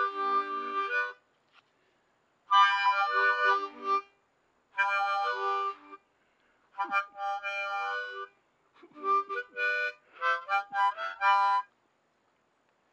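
Harmonica playing short phrases of chords, each a second or two long with brief pauses between, stopping near the end.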